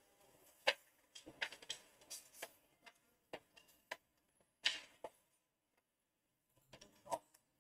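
Faint computer mouse clicks at irregular intervals, about a dozen short ticks, with a silent gap of a second or so around the six-second mark.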